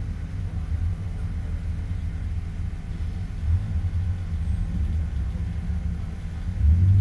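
BMW Compact race car's engine idling while the car sits stationary, a steady low rumble heard from inside the car. It swells briefly near the end.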